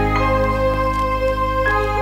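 Background music: held chords over a steady deep bass note, with the top note changing about a second and a half in.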